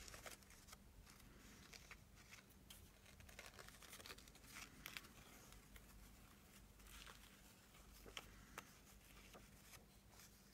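Near silence with faint, scattered rustles and light taps of ribbon and paper being handled as a ribbon is wound around a journal.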